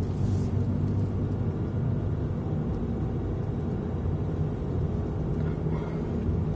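Steady engine and road noise heard inside the cabin of a moving car: a low rumble with a faint hum.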